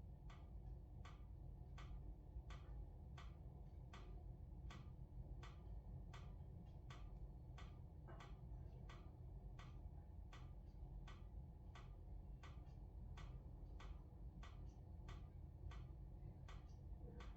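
Wood briquettes burning in a fireplace: a steady run of small sharp crackles, two or three a second at slightly uneven spacing, over a soft low rumble of the fire.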